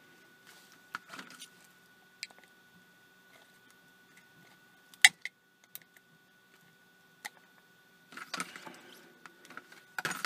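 Small plastic parts of a night vision monocular's housing being handled and pressed together: scattered light clicks and taps, a sharper click about five seconds in, and rubbing and scraping of the casing near the end.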